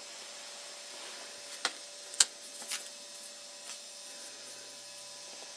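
A few light clicks and taps, the sharpest about two seconds in, as paper screen cards are handled and a new one is laid onto a paper phone prototype. Steady hiss and a faint hum run underneath.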